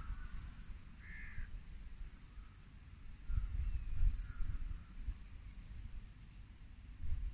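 Wind buffeting the microphone in uneven gusts, strongest in the middle, over a steady high chirring of meadow insects, with a short high call about a second in.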